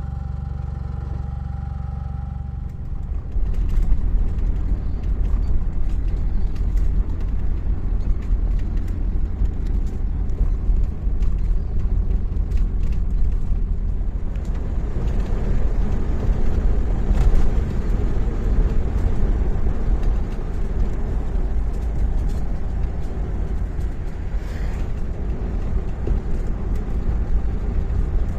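A running engine: a steady low hum that turns, about three and a half seconds in, into a louder, rougher rumble with scattered knocks and rattles, as of a vehicle moving off and travelling.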